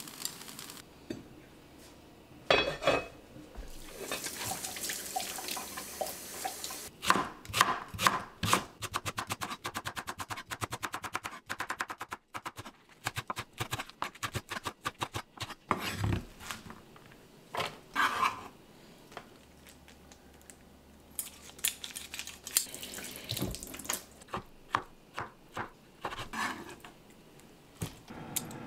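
Kitchen-knife chopping of a green onion on a wooden cutting board, sped up so the chops run together as a fast stream of clicks, among stretches of running tap water and a few clatters of dishes.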